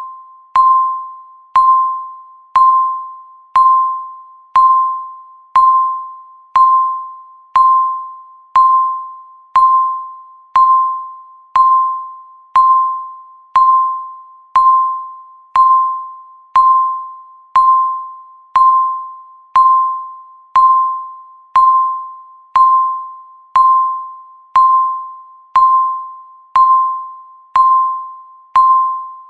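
Countdown timer beeps: a single pitched electronic beep about once a second. Each beep starts sharply and fades away in about half a second, marking one second counted off.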